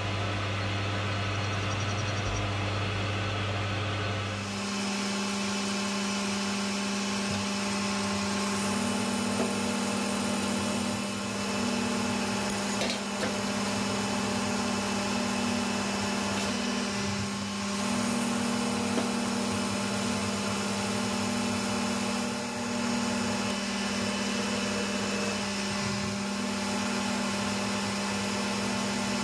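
Metal lathe running, turning the outside diameter of an aluminium piston blank. About four seconds in the sound changes to a higher, stronger steady tone with cutting noise over it, which then runs evenly while the tool takes the cut.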